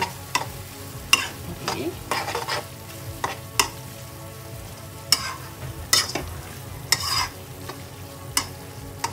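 Metal spoon stirring and scraping a creamy vegetable sauce in a nonstick wok, over a steady low sizzle from the pan. The scrapes come irregularly, roughly once a second.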